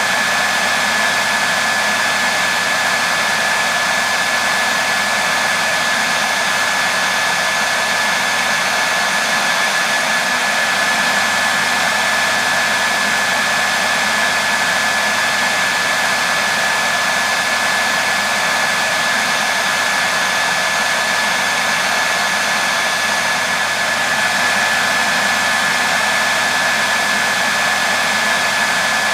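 Hair dryer running steadily: an even rush of air with a constant high whine from its motor.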